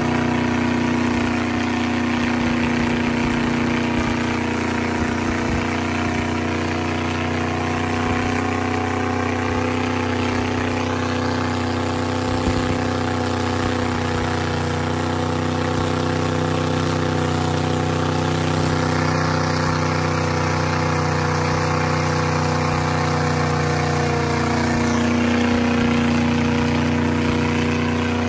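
Mega truck's engine running steadily under load as its giant tractor tires spin and churn through deep mud, an even drone that hardly changes, with a slight shift in pitch near the end.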